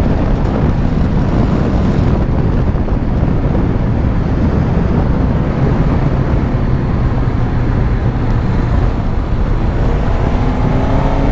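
Suzuki GSX-S1000GT's inline-four engine running under way, with heavy wind rush on the microphone. About ten seconds in, the engine note starts to climb as the bike accelerates.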